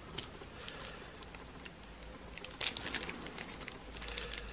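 Thin clear plastic sleeve crinkling as it is handled, with a card sliding against it: a run of small crackles that gets busier about two and a half seconds in.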